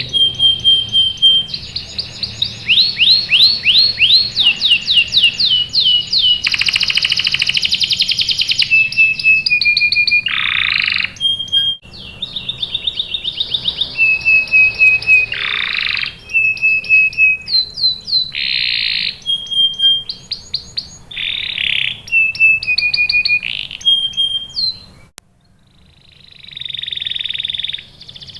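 Canary singing a long, loud song of rapid repeated chirps, trills and held whistled notes. It breaks off briefly near the end, then starts again.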